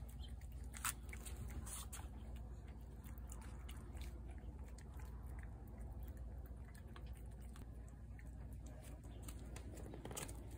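Cats chewing canned wet cat food from a plate: faint, irregular wet clicks and smacks.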